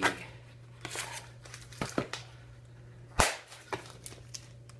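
Stiff plastic blister packaging being cut and pried off its cardboard backing card with a knife, cracking in a few sharp snaps; the loudest snap comes a little past three seconds in.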